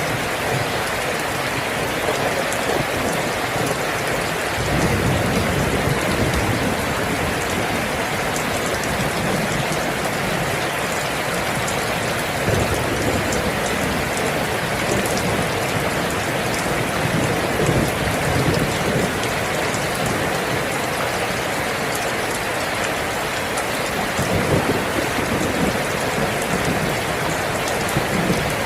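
Heavy rain falling steadily, a dense even hiss of drops, with low rumbles of thunder swelling up several times.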